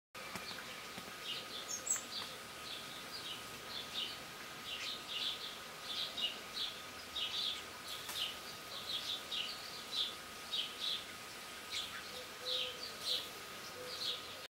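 Small birds chirping: short high calls repeated irregularly, about two a second, over a faint steady high tone.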